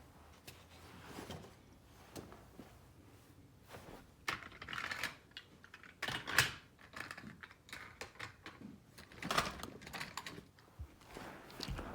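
Small die-cast and plastic farm toys being handled: irregular light clicks, taps and rustles, in a few clusters with short gaps between.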